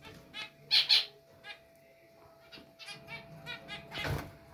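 Zebra finches calling in short, sharp beeps: a loud pair of calls just under a second in, then a quick run of calls in the second half.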